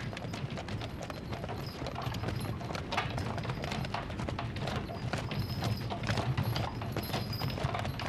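Hooves of several horses clip-clopping, a dense, uneven run of hoofbeats that goes on throughout.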